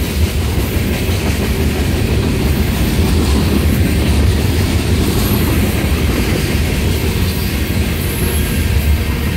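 Freight train hopper cars rolling past: a steady, heavy rumble of steel wheels on the rails, with a couple of brief, faint high wheel squeals.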